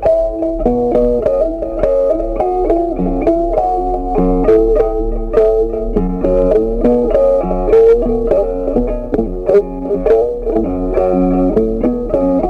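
Instrumental background music, a melody of plucked string notes over a bass line.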